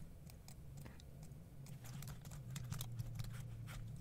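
Computer keyboard typing and mouse clicks: a quick, irregular run of faint soft clicks over a low steady hum.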